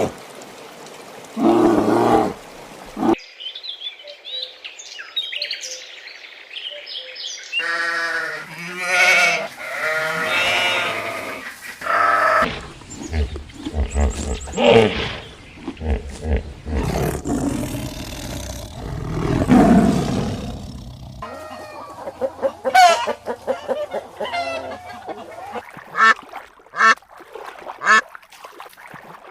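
A string of different animal calls, cut abruptly from one clip to the next several times.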